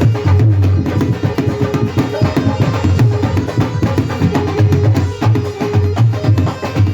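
Instrumental devotional band music: hand drums play a fast, steady rhythm under held melody notes from a keyboard-type instrument.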